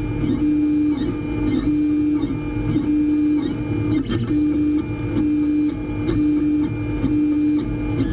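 Printrbot Simple Metal 3D printer's stepper motors whining as the print head moves while printing. It is a steady tone that breaks off and starts again about twice a second as each short move ends and the next begins.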